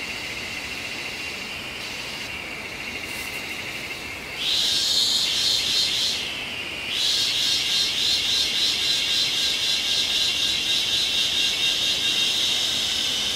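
Forest insects droning: a steady high buzz throughout, joined about four seconds in by a louder, higher, rapidly pulsing insect buzz that breaks off for about a second and then resumes to the end.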